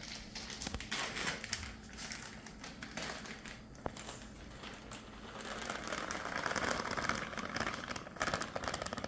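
Plastic bag of shredded mozzarella crinkling and rustling as it is handled and the cheese is emptied out, with irregular small clicks and a denser stretch of rustling about six to eight seconds in.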